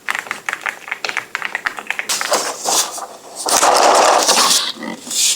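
Typing on a mechanical keyboard fitted with UltraEquip Emerald keycaps: quick, dense key clacks for about two seconds. Then come several longer noisy swishes, the loudest about three and a half seconds in.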